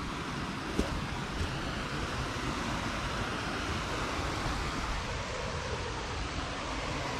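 Rushing water of a stream or small falls, a steady hiss, over a low, uneven rumble, with one short click about a second in.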